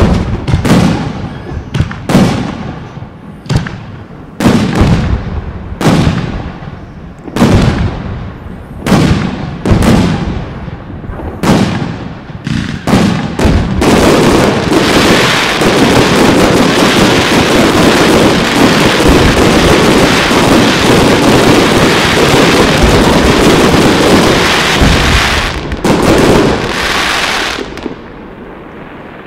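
Aerial firework shells bursting, a sharp bang every half second to a second. About halfway through it turns into a dense, continuous barrage of overlapping bangs that cuts off sharply near the end.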